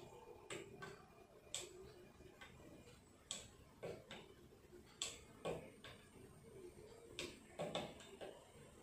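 Spoon stirring thick mango pulp and cranberry juice in a tall glass, clinking faintly against the glass in irregular light ticks, about one or two a second.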